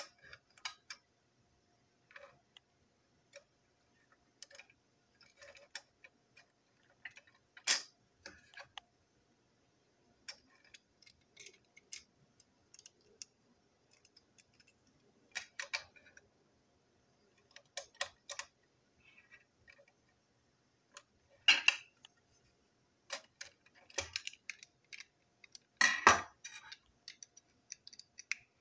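Small plastic toy train wagon parts clicking and clattering as they are pulled apart and handled, in irregular taps and snaps, with two louder clatters in the last third.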